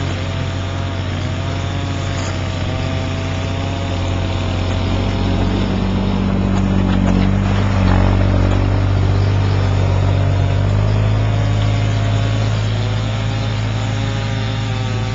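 All-terrain vehicle engine running steadily, a little louder around the middle, its pitch shifting slightly a few seconds before the end.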